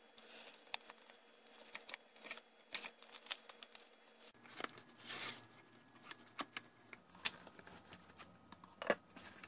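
Knife blade slitting along the seam of a waxed cardboard ration box, then the sealed flaps being pried and torn open: a run of small scratches and clicks, with a longer tearing rasp about five seconds in and a sharp crackle near the end.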